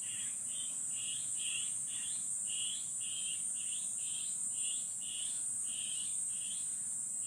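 Insects chirping: a steady high-pitched drone under a rhythmic chirp repeating about twice a second.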